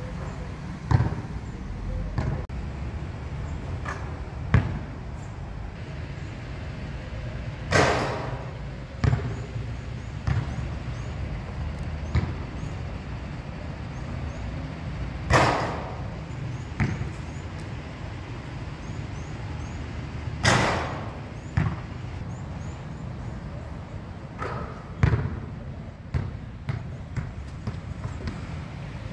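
A basketball bouncing on an outdoor concrete court in sharp, separate thumps, with three louder crashes spread through as shots hit the hoop. A steady low rumble runs underneath.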